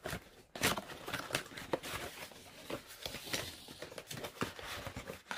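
Cardboard product box being opened by hand: flaps pried and pulled open and packaging scraping and rustling, in irregular short strokes with a few sharper clicks.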